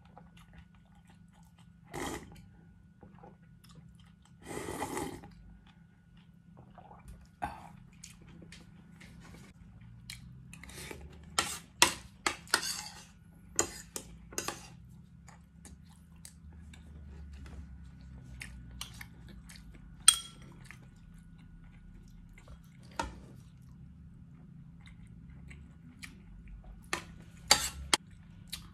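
Close-up eating sounds: sips of broth from a bowl, chewing, and spoon and fork clicking and scraping on a ceramic plate, in scattered short bursts. About twenty seconds in, one sharp metal clink rings against the plate.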